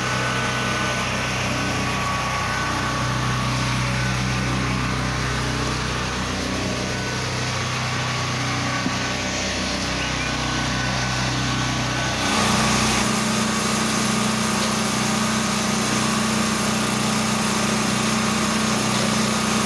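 Pressure washer's small engine running steadily under a broad hiss of spraying water. The engine note shifts abruptly about twelve seconds in, then runs steady again.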